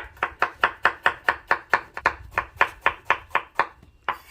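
Kitchen knife slicing pears in a quick, even rhythm of about four to five strokes a second, with a short break near the end before one more stroke.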